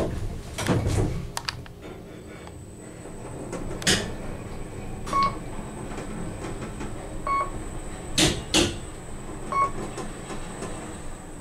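Traction elevator car descending: three short electronic beeps about two seconds apart as it passes floors, over a faint steady high-pitched whine. There are a few sharp knocks along the way, the loudest a pair close together near the end.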